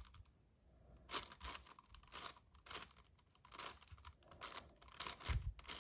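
Layers of a magnetic 7x7 Rubik's cube being turned by hand: faint plastic clicks and scrapes, two or three turns a second, starting about a second in.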